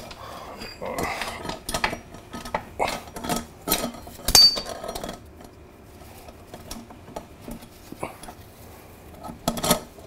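Metal clinking and knocking as the rear brake caliper and bracket of a motorcycle wheel are worked into place against the swing arm. There is a run of sharp knocks in the first half, with the loudest clink ringing briefly about four and a half seconds in, then quieter handling and a few more knocks near the end.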